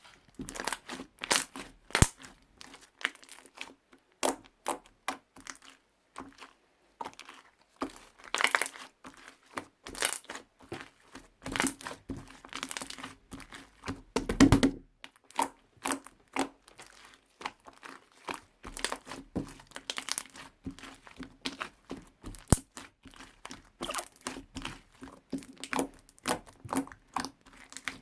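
Hands squeezing and kneading stationery-shop slime, making a run of irregular wet pops and crackles.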